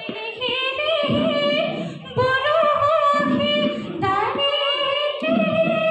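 A woman singing a Bihu song, holding long notes that slide up and down in pitch.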